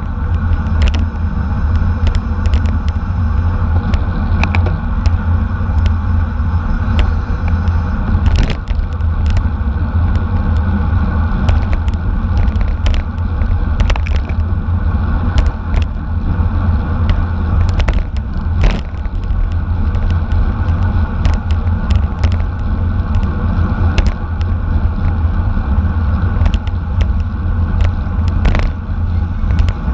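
Steady, heavy wind rumble on the microphone, with rolling road noise and scattered sharp clicks and knocks, as from a bicycle racing at speed.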